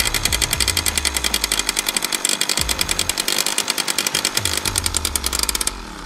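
Suzuki JR50's small single-cylinder two-stroke engine running with a rapid, even firing beat while warming up, then cutting out abruptly near the end as the bike is shaken: it stalls when jostled before it is fully warm.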